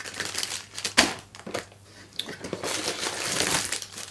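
Plastic parts bags crinkling and rustling as they are handled, with a sharp click about a second in.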